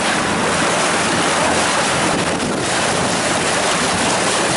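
Steady rush of sea water and wind around a tour boat under way on a choppy sea, with wind buffeting the microphone.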